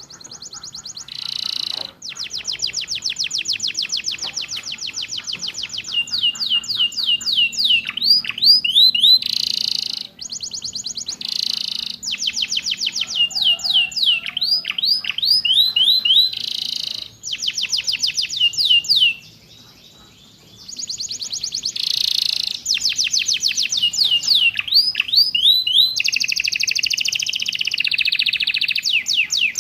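Domestic canary singing a loud, continuous song of very fast trills and quick up-and-down sweeping notes, with phrases copied from ciblek and prenjak (prinias) worked in. The song breaks off for about a second about two-thirds of the way through, then resumes.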